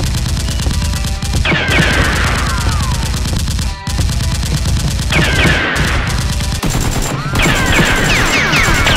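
Automatic gunfire sound effect, rapid continuous shots. Three times it is joined by clusters of falling whistles, like bullets whizzing past.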